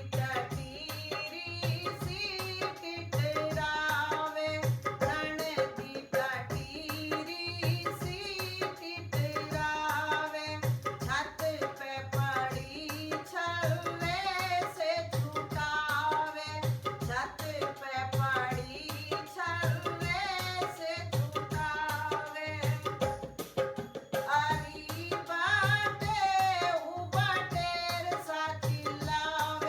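A woman singing a Hindi folk song over a steady hand-drum beat.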